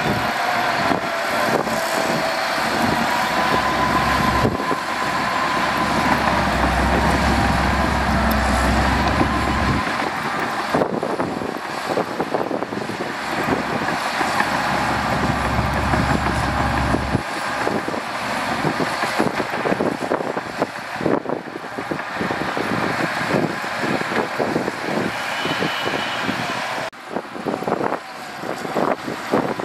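Shantui DH17 C2 crawler bulldozer pushing soil: its diesel engine running under load, with a dense, steady clatter of the steel tracks.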